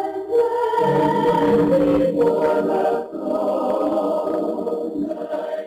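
A choir singing slow, held chords.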